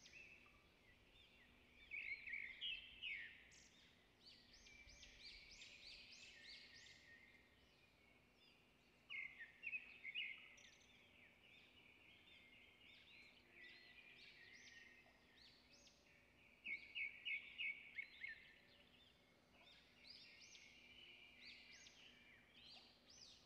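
Birds chirping and calling, short high-pitched notes in quick runs, with three louder flurries spread through.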